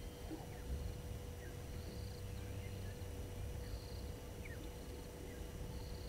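Outdoor bush ambience: a low rumble, a short high trilling call repeating about every two seconds, and a few faint chirps, over a faint steady hum.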